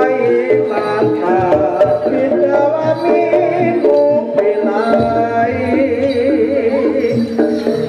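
Music: a busy melody over quick hand-drum strokes.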